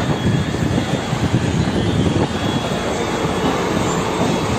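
A train running: a steady rattling rumble that keeps an even level throughout.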